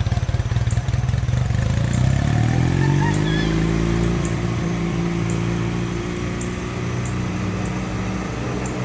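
Honda Rebel 250 motorcycle's parallel-twin engine idling, then from about two seconds in revving up as the bike pulls away in first gear, its pitch rising and then settling into a steady run.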